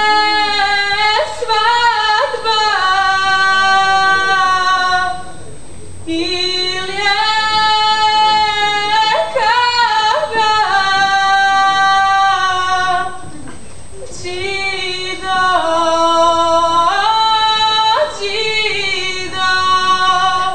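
Women singing a traditional Bosnian folk song from Sarajevo in long, held, ornamented phrases. The phrases break off with short pauses about 5, 13 and 18 seconds in.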